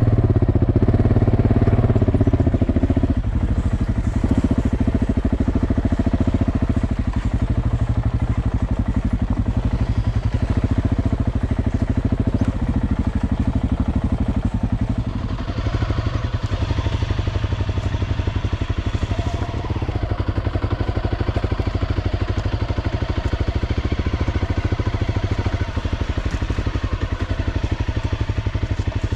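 Enduro motorcycle engine running close by as the bike is ridden along a rocky forest trail. The engine note is steady throughout and a little louder in the first few seconds.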